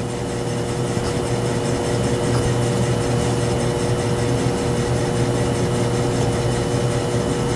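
Lathe running at a steady speed as it spins a laser bore sighter: an even motor hum with a few constant tones held through it, growing a little louder in the first second.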